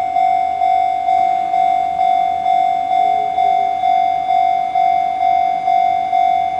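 Railway level-crossing warning bell ringing, one steady ding repeating a little over twice a second.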